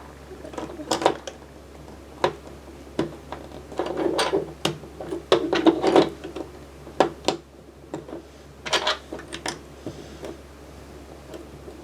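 Plastic Lego bricks clicking and clattering as they are handled, sorted through and pressed into place. There are separate sharp clicks, with a denser rattle of bricks about four to six seconds in and another short cluster near nine seconds.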